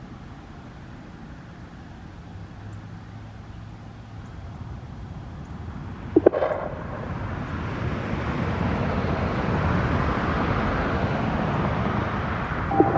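A road vehicle passing, its engine and tyre noise swelling over several seconds, with a brief sharp chirp about six seconds in.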